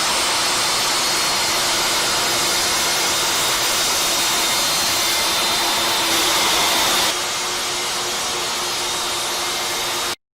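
Dewalt DWE7485 compact jobsite table saw running: a steady, loud motor and blade noise with a constant hum. The sound changes slightly about seven seconds in and cuts off abruptly near the end.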